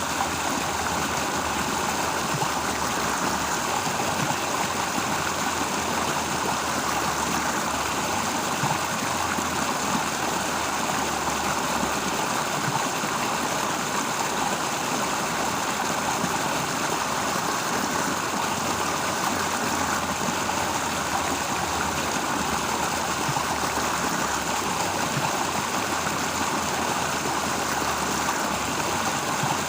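Steady rushing of water in a flowing stream, unbroken, with a faint low rumble beneath.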